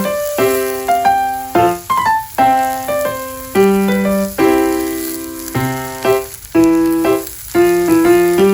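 Background piano music: chords struck in a steady rhythm, each ringing out and fading before the next.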